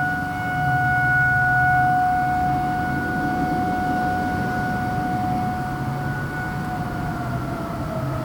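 Outdoor tornado warning siren sounding one steady, held tone, which begins winding down near the end, its pitch sliding lower.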